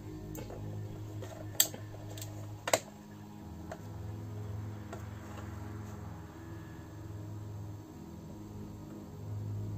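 Small magnets clicking sharply against the metal plate and each other as they are handled and set in place: two loud clicks in the first three seconds and a few fainter ones, over a low steady hum.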